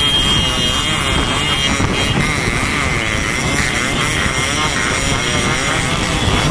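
A pack of motorcycles running together at road speed, heard from one of the bikes, with steady wind noise on the microphone. A high steady tone sounds through the first second and a half.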